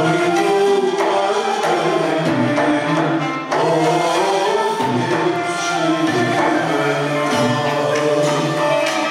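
Live Turkish Sufi music: men's voices singing a melody, accompanied by violin and kanun.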